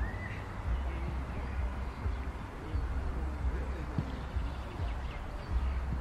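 Outdoor park ambience: a low, gusty rumble of wind on the microphone, faint distant voices around the middle, and a short rising bird chirp right at the start.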